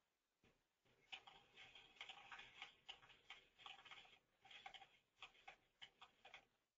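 Faint, thin-sounding series of pistol shots and hits on steel plates from a falling-plate course of fire, heard as a quick run of ticks and pops that starts about a second in, with a few more spaced-out ticks near the end.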